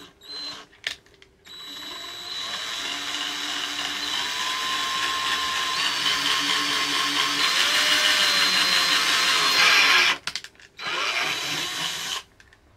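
Cordless drill boring holes through the tough plastic underside of a car's rear bumper. A few short bursts, then a steady run of about eight seconds with a motor whine that shifts in pitch. It stops about ten seconds in, with one more short burst near the end.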